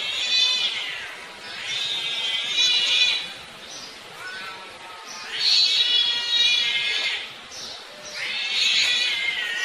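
Cats yowling at each other in a standoff: about four long, high, wavering cries, each lasting a second or two.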